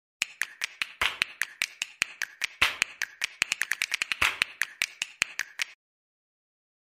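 A rapid run of sharp clicks, about five a second and uneven in loudness, that stops abruptly about a second before the end.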